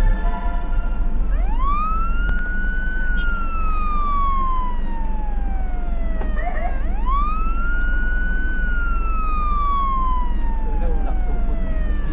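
Ambulance siren wailing: each cycle sweeps quickly up in pitch, then falls slowly for about four seconds, repeating every five and a half seconds or so. It starts about a second in, over the steady low drone of the moving vehicle.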